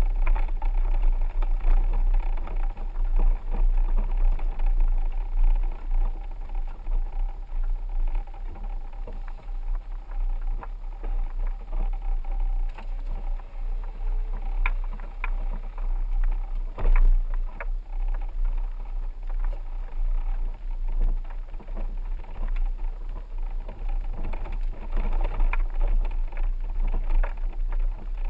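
A 4x4 vehicle driving: a steady low rumble of engine and tyres, with a few sharp knocks about halfway through.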